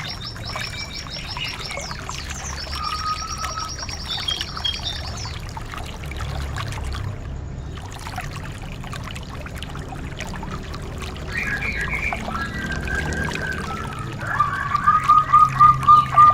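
Songbirds singing over a steady rush of running water. Fast high trills come first, then lower whistled phrases, and near the end a loud, fast run of repeated notes.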